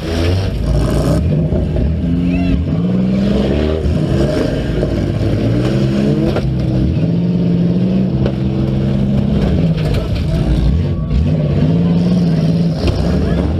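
Demolition derby car engines revving, rising and falling in pitch over and over, with more than one engine audible at once.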